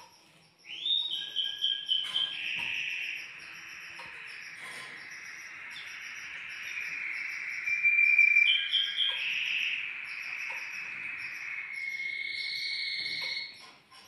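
Canary singing one long song of rapid trills and rolling notes, starting about a second in and stopping just before the end, loudest about halfway through. A faint, fast, high-pitched chirping repeats throughout.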